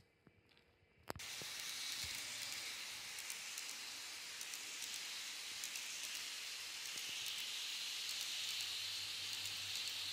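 Model freight train's container wagons rolling along the track: a steady hissing rush of small metal wheels on rails with scattered faint clicks. It starts suddenly about a second in, right after a click.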